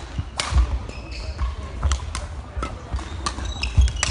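Badminton rally: sharp racket strikes on the shuttlecock roughly once a second, with trainers squeaking and thudding on the wooden court floor.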